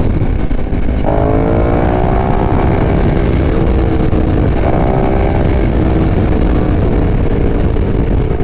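KTM 1290 Super Duke R's V-twin engine under way, heard through heavy wind rumble on a helmet microphone. The engine note comes in about a second in and slowly drops in pitch, then comes in again near five seconds and holds steady.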